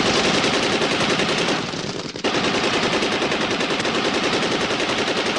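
Rapid automatic machine-gun fire in long sustained bursts, with a short break about two seconds in.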